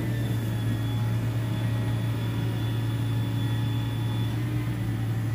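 A vehicle engine idling steadily, a low, even hum that holds one pitch without revving.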